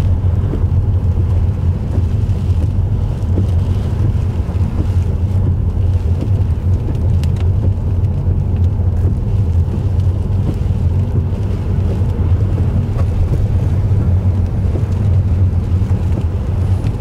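Steady, loud low rumble of hurricane-force wind buffeting the microphone, mixed with the car's road noise as it drives through storm debris, with a few faint ticks.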